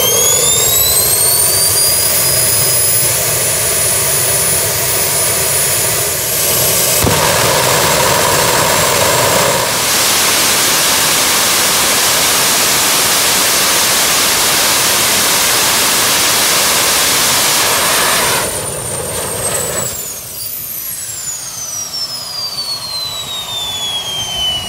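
Homemade jet kart's jet engine with afterburner, on a static test. It spools up with a rising whine, runs loud and steady with the afterburner lit, then cuts down about 18 seconds in and winds down with a falling whine.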